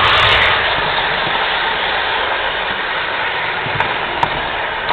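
Model train running along its track, heard from a camera riding aboard: a steady rushing noise with two short clicks near the end.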